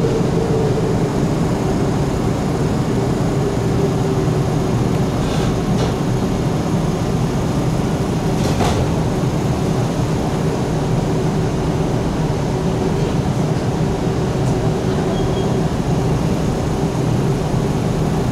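KiHa 75 series diesel railcar running along the line, heard from inside the car: a steady drone from its Cummins diesel engine and running gear, with a steady whine and the rumble of wheels on rail. A couple of faint clicks come about five and nine seconds in.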